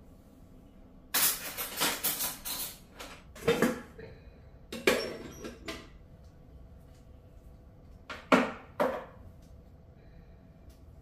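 Kitchenware being handled on shelves: a burst of clattering about a second in, a few more knocks and rattles, then two sharp knocks close together later on.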